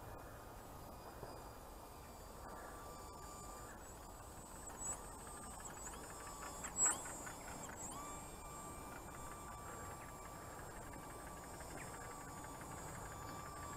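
Faint steady whine of a model plane's small electric motor and propeller in flight, with a short louder sweep in pitch about seven seconds in as it passes close overhead.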